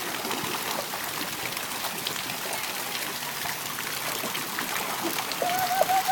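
Water fountain jets splashing steadily into a stone basin, with a child's hands splashing in the water.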